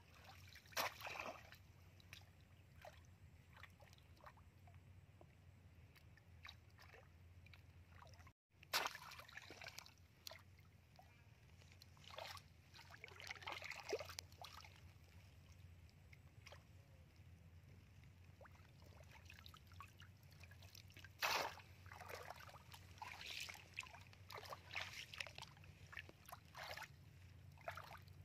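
Shallow muddy water sloshing and splashing in short, scattered bursts as a woven plunge-basket fish trap is pressed down into it and hands work inside.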